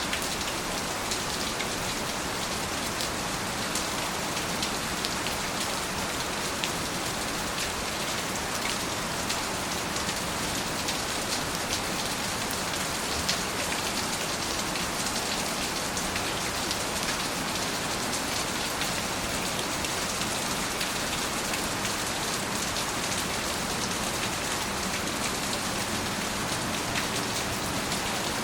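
Steady rain falling, a constant hiss with many small drop ticks.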